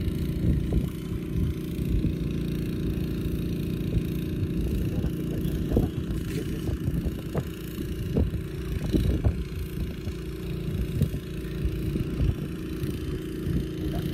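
Fish being handled and threaded onto a cord: irregular rustling and soft knocks, with the sharpest ones around six, nine and eleven seconds in. Underneath runs a steady low motor hum.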